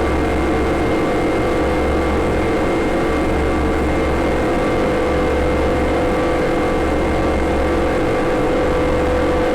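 Electronic drone from an Elektron Digitone synthesizer: steady held tones over a noisy wash, with a low bass hum that drops out and returns every couple of seconds.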